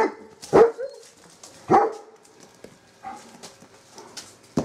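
Short, loud animal calls, three in the first two seconds, then softer scuffling sounds and a sharp knock near the end.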